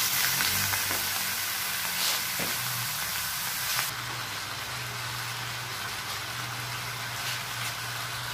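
Raw pork belly and chicken pieces sizzling in hot oil in a wok, stirred with a wooden spatula. The sizzle is loudest at first and settles to a softer, steady sizzle about four seconds in, over a steady low hum.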